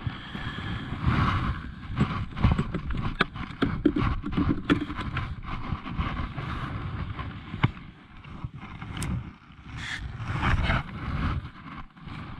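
Gear being handled on a kayak deck: a run of small irregular knocks, clicks and scrapes, with rustling of clothing and a few louder scuffs near the end.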